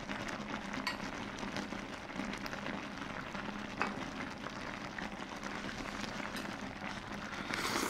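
Hot noodle stew in an enamel pot giving off a steady soft sizzle, with a few light clicks of chopsticks on the pot and a slightly louder noisy stretch near the end.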